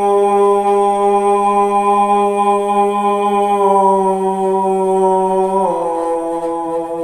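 A man singing a Sufi kalam unaccompanied, holding one long note. The note drops a little in pitch near the end.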